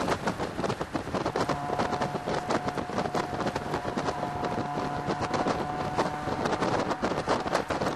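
Mazda MX-5 Miata's four-cylinder engine running on track with the top down, almost buried under heavy wind buffeting on the microphone in the open cockpit. From about a second and a half in, the engine holds a steady note.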